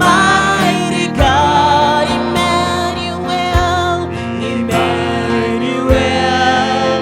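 Live gospel worship music: singing over a band, with occasional drum hits.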